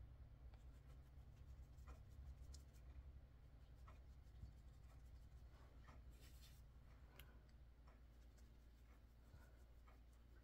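Near silence: a makeup applicator dabbing and rubbing on facial skin, soft scattered ticks and scratchy rubs over a faint low hum, with a brief hiss about six seconds in.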